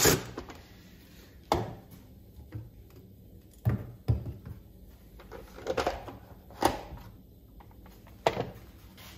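A handful of separate knocks and thuds, about six spread over several seconds, as a chainsaw's plastic top cover is lifted off and the cover and a cordless drill are set down on a wooden workbench.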